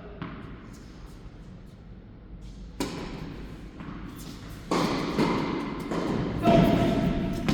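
Tennis ball strikes: a few sharp thuds, one about three seconds in, a louder one near five seconds and another near the end.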